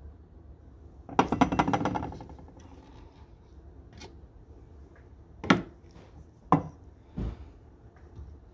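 Glass etching cylinder being opened: a fast rattling scrape about a second in as its plastic lid is worked off, then four separate sharp knocks and clinks of glass and hard plastic.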